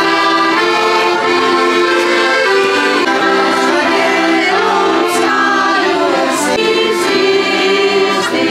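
Piano accordion playing a Christmas carol (kalanda) with a group of carolers singing along.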